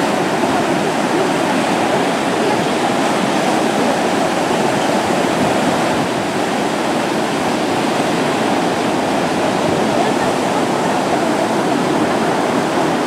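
Small surf, waves of one to two feet, breaking and washing up onto a sand beach: a steady, even rush of water.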